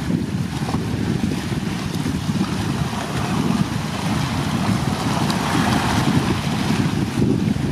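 Wind buffeting the microphone, a steady low rushing rumble with a gusty flutter, over the wash of choppy water.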